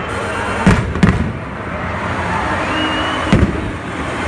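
Stadium fireworks display: sharp bangs of shells bursting, two close together under a second in and another about three seconds in, over a steady background noise.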